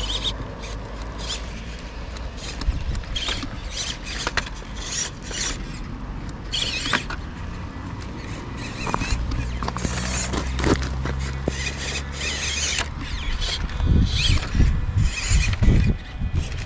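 Small electric motor and gearbox of a cheap MN96 1/12-scale RC crawler whirring and squeaking as it crawls over rocky dirt, with clicks and scraping from the tyres and chassis on the rocks. It is louder near the end as it climbs close by. It comes on in uneven spurts, for its throttle lacks low-end control.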